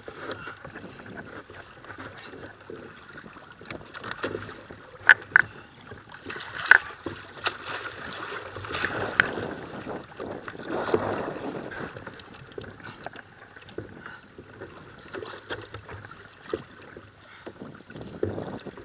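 Sea water lapping and slapping against the hull of a plastic sit-on-top fishing kayak, with a few sharp knocks about five to nine seconds in.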